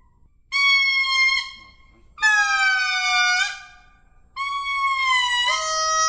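Lemurs giving long, steady-pitched calls: three calls of about one to one and a half seconds each, separated by short pauses, the second and third with two or three voices overlapping at different pitches.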